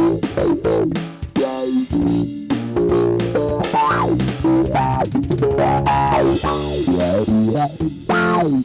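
A band playing: guitar notes sliding and bending over a steady bass line and drum kit.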